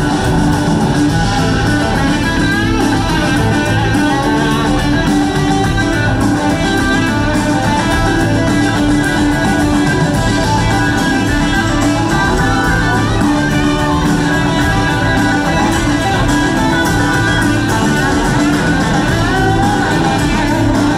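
Live rock band playing an instrumental, with electric guitar leading over bass and drums. Some guitar notes glide in pitch. It is heard loud and steady from the audience.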